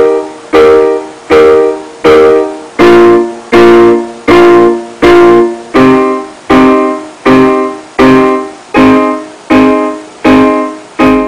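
Background music: piano chords struck in a steady rhythm, about one every three-quarters of a second, each fading before the next, with the chord changing every few strikes.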